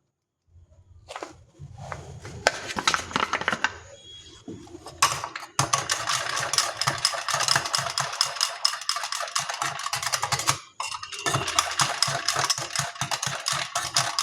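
A spoon stirring thick hung curd mixed with spices and tamarind chutney in a bowl: rapid clicking and scraping against the bowl. It starts about a second in and keeps going, with a short pause near the 11-second mark.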